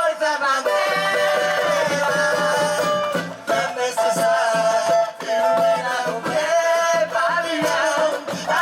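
Live samba music: long held melody notes over the steady beat of the samba percussion.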